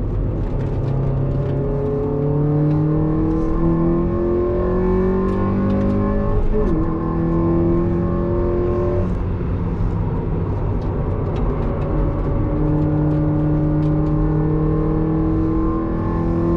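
Mazda NB Roadster's four-cylinder engine pulling hard on track, heard from inside the cabin. Its pitch climbs steadily in long runs, with a brief dip about six and a half seconds in and an easing off between about nine and twelve seconds before it pulls up again.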